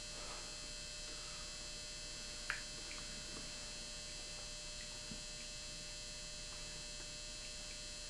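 Steady electrical hum and hiss of room tone, with one small click about two and a half seconds in.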